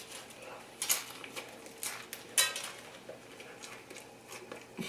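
Close-miked mukbang eating sounds: a few short, sharp clicks and smacks spread through a quiet stretch, from chewing or from the plate and utensils.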